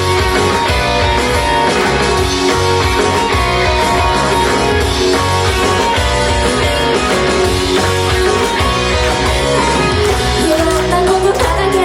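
Loud guitar-driven rock music with drums, played for a live performance; a singing voice comes in near the end.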